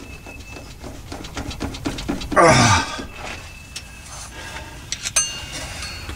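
Hooked seal-puller tool scraping and clicking against a truck's rear transmission seal as it is pried and pulled, with a short strained grunt about two and a half seconds in and a sharp metallic click near the end.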